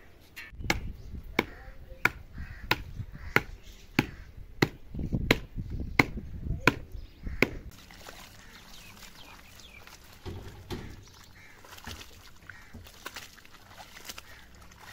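A steady series of about eleven sharp knocks, one every two-thirds of a second, that stops about seven and a half seconds in.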